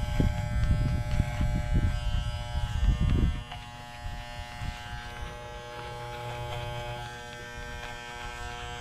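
Corded Wahl electric clipper buzzing steadily as it trims the fur on a dog's paw. A louder low rumble runs under the buzz for the first three seconds or so.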